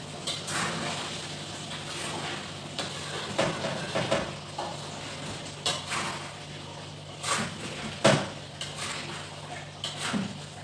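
A spatula stirring food in a wok, knocking and scraping against the pan in irregular clatters, the loudest about eight seconds in, over a steady low hum.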